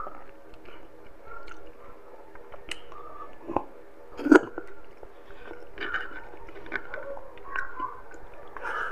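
Close-up chewing and mouth sounds of a person eating soft-braised pork and rice with his fingers: irregular wet clicks and smacks, the sharpest a little after three and a half seconds and about four and a half seconds in.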